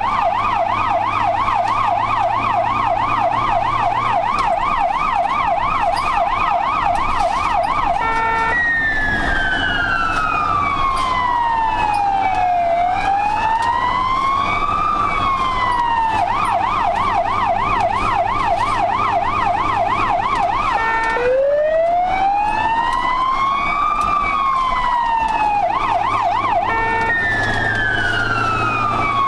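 Ambulance electronic siren on an emergency run, heard from inside the cab. It switches between a fast yelp of several sweeps a second and a slow wail that rises and falls over a few seconds, changing pattern about every eight seconds. The vehicle's engine hums steadily underneath.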